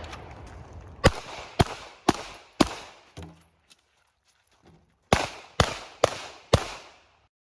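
Pistol fired in two strings of four shots, each about half a second apart. Between the strings is a pause of about two and a half seconds with a few faint knocks.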